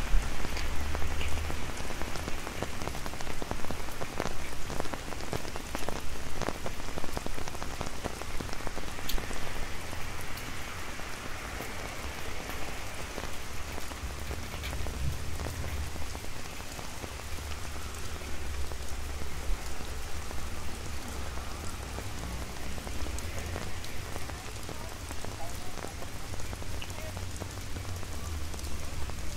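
Rain falling on an umbrella held close overhead: a steady hiss dotted with the ticks of single drops, over a low rumble.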